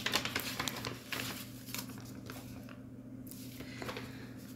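Paper rustling and crinkling as a paper envelope is opened and a folded question sheet is pulled out and unfolded, busiest in the first two seconds.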